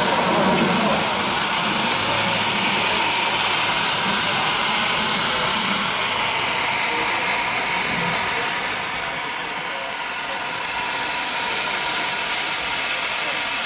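Steady hiss of steam escaping from steam rollers and traction engines standing in steam.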